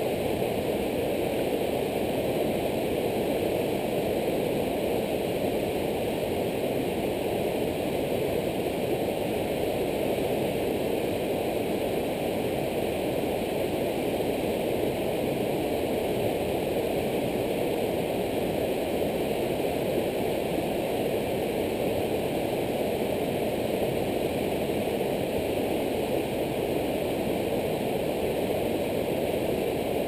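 Whitewater river rapids rushing steadily: a constant, even noise of churning water.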